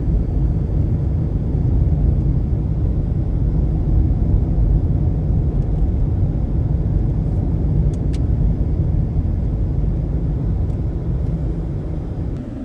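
Steady low rumble of a moving vehicle, with a few faint clicks about eight seconds in.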